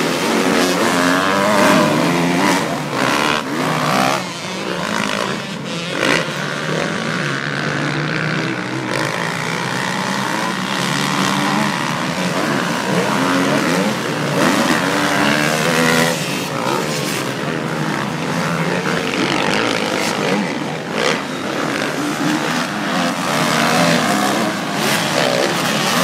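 Several motocross bikes racing around a dirt track, their engines revving. The overlapping engine notes rise and fall in pitch as the riders open and close the throttle.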